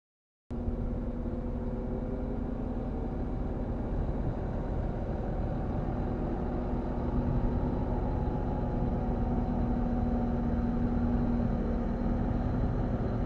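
Caterpillar 966M wheel loader's diesel engine running steadily, close by, with a steady low hum. It cuts in abruptly about half a second in.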